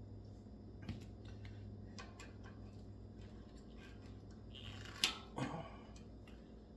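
Small metal clicks and handling noises of a nut, washers and wire terminals being worked by hand, with a sharper clink about five seconds in, over a steady low hum.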